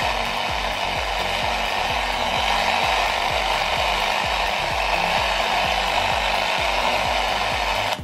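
Steady loud hiss of an old Philips radio's FM band between stations coming from its speaker, with a song from a phone playing underneath with a steady beat through the newly wired AUX input. Radio and AUX playing together is the sign that the new wiring works.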